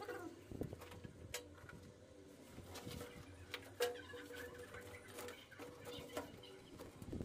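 Scattered light clicks and knocks of CPVC pipe and plastic fittings being handled and pushed together, with a faint steady tone in the background.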